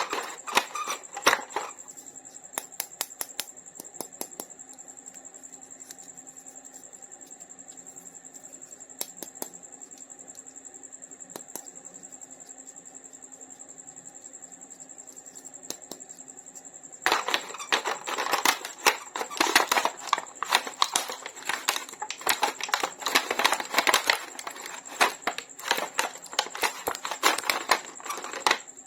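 Toy packaging being handled and opened: scattered sharp clicks and taps at first, then, a little past halfway, a long dense run of plastic crinkling and clicking. A faint steady high-pitched whine runs underneath.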